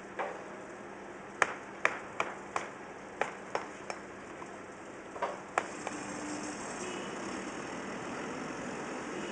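Building demolition: about ten sharp, irregular clanks and bangs of striking and falling debris over the first six seconds, some with a short ring. From about six seconds in they give way to a steady, hissing machine noise.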